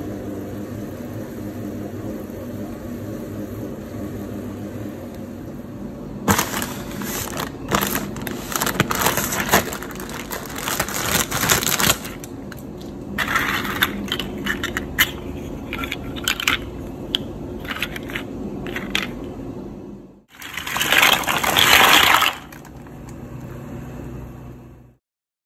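A steady low hum at first, then the irregular crinkling and rustling of a plastic bag of dried pasta shells being handled and cut open with scissors, with dry rattles of the shells. Near the end comes a louder rush of noise lasting about two seconds.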